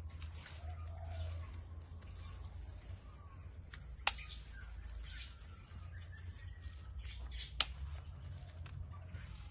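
Garden scissors snipping green bean pods off the plant: two sharp clicks, the second about three and a half seconds after the first.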